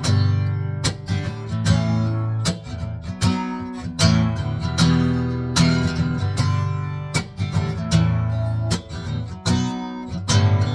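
Acoustic guitar strummed in a steady rhythm, chords ringing between strokes: a song's instrumental intro.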